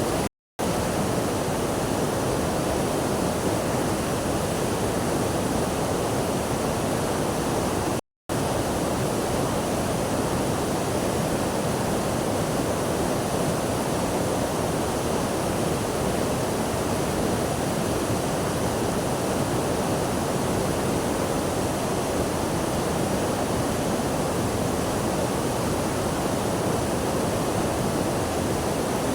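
Steady rushing water, an even, unbroken wash of noise, cut to complete silence for a split second twice, about half a second in and about eight seconds in.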